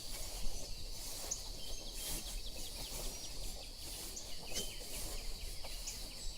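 Forest ambience sound effect: scattered short bird chirps over a steady insect-like hiss.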